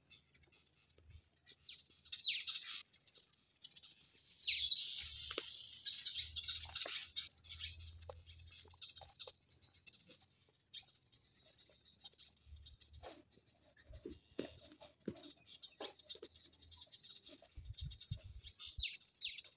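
Birds chirping, in bunches of quick high calls that are loudest about two seconds in and again from about four and a half to seven seconds in, over faint scattered crackles from a wood fire.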